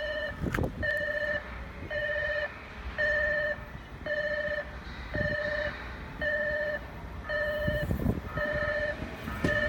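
Railway platform train-approach warning alarm: an electronic beep sounding about once a second, each beep about half a second long. A low rumble with a few thumps runs underneath.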